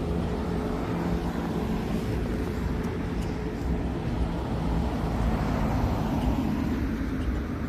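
Steady low rumble of a moving vehicle, with a faint steady hum over it.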